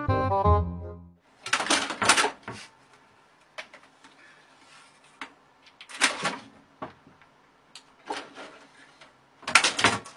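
Short bursts of scratching and rustling, about three of them spread apart with faint clicks in between, as a cat claws at a fabric suitcase and curtain. A snatch of music ends about a second in.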